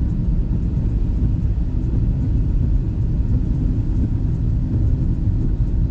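Steady low rumble of road and engine noise inside a car's cabin while driving along a highway.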